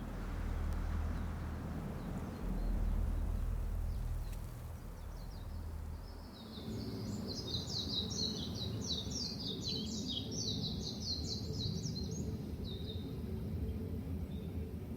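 Small birds twittering in a dense run of rapid high chirps, starting about six seconds in and fading out a couple of seconds before the end, over a low rumble that drops away as the chirping begins.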